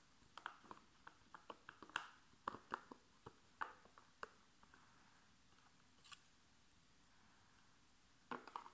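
Faint crinkling and clicking of a thin plastic packet being handled and pulled at by hand: a quick run of small crackles for the first few seconds, a lone click around six seconds in, and a few more near the end.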